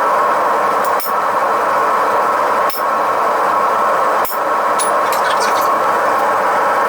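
Forge running with a steady roar, and three sharp hammer strikes about a second and a half apart, typical of driving a small fuller into a hot horseshoe to mark it.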